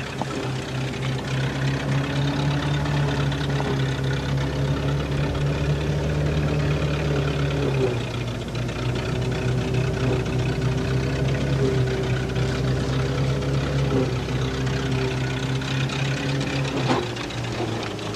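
Threshing mill driven by a tractor through a flat belt, running with a steady hum whose low note drops slightly about eight seconds in, with a brief knock near the end.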